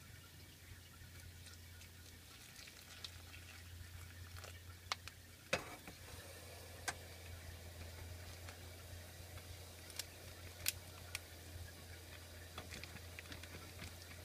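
Faint handling of a plastic zip-top bag being sealed: scattered light clicks and crinkles over a steady low hum.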